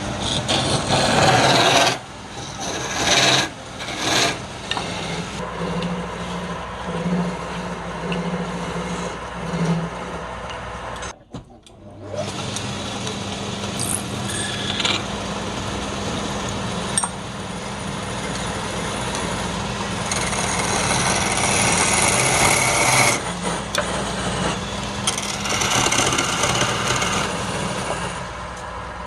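Wood lathe running with its steady motor hum while a tool or abrasive scrapes and rasps against the spinning wood, the noise rising and falling in surges and briefly cutting out a little past halfway.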